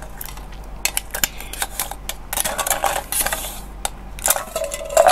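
A plastic drinking straw being moved around in a cup of drink, giving repeated sharp clinks and rattles with short rustling stretches, picked up close by a clip-on lavalier microphone.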